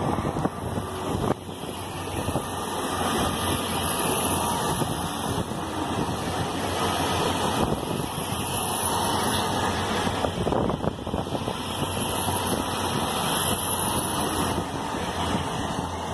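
Great Western Railway Intercity Express Train passing close at speed: a steady rushing rumble of wheels on rail and train noise, with a thin high whine through most of it.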